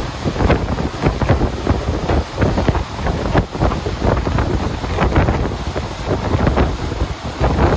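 Wind buffeting the microphone aboard a moving boat, in irregular low gusts over a steady rush of air and water.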